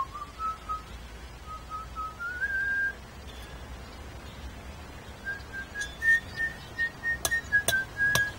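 A person whistling a slow tune. It opens with a few rising notes, pauses for about two seconds, then goes on with a higher phrase. A few sharp clicks sound near the end.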